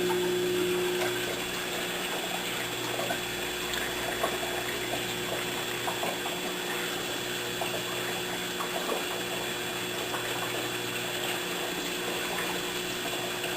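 Water churning and trickling through a running reef aquarium, driven by its circulation pumps and protein skimmer, over a steady low electric hum. A few faint small clicks.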